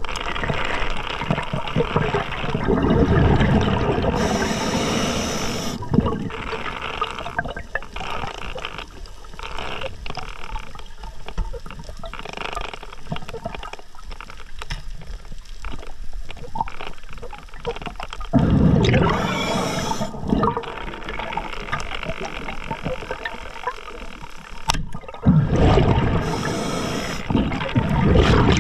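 Scuba diver breathing through a regulator underwater: a few short hissing inhales, each followed by a rush of exhaled bubbles, with long quieter gaps of water noise between breaths.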